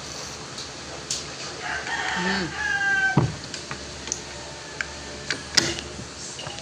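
A long, high, pitched call lasting about a second and a half, near the middle, over a steady background. Scattered sharp clicks run through it, the loudest about two-thirds of the way in.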